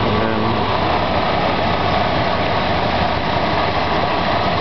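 A car engine idling steadily, an even running noise that holds throughout.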